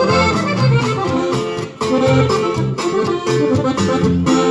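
Norteño band playing an instrumental break in a corrido: accordion carrying the melody over guitar, bass and a drum kit keeping a steady beat. The band stops briefly for an instant about two seconds in.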